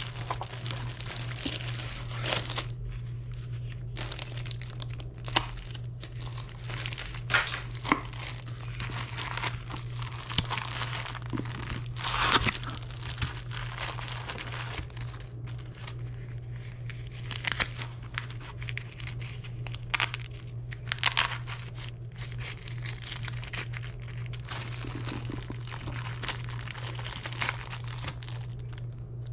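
Clear plastic packaging bags crinkling and rustling in irregular bursts as items are handled and unwrapped, over a steady low hum.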